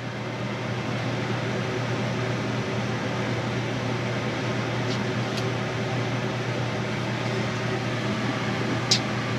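Electric fan running steadily with a constant hum, with a couple of faint clicks about five seconds in and a sharper click near the end.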